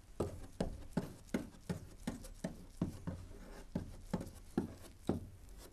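Small bristle brush working epoxy resin into sanded fibreglass, with short dabbing strokes about two or three times a second. This is the priming coat of two-step bonding, wetting the resin into the bare fibres.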